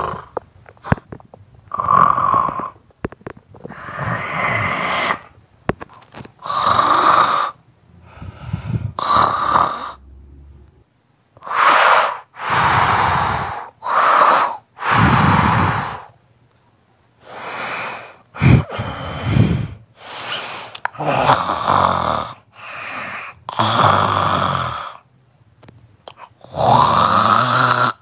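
A person snoring loudly: a run of about fifteen snores, each roughly a second long, coming at uneven short gaps.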